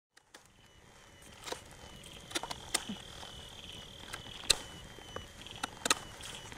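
Night-time woodland ambience fading in from silence: a faint, steady insect trill, with scattered sharp clicks and snaps.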